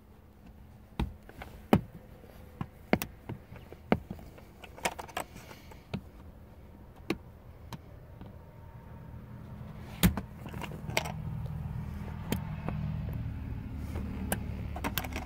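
Flathead screwdriver prying at the metal retaining loop inside a 2019+ Chevy Silverado headrest post guide: a string of sharp, irregular metallic clicks and taps, the loudest near the start and about ten seconds in. From about ten seconds on, a low rumble rises under the clicks.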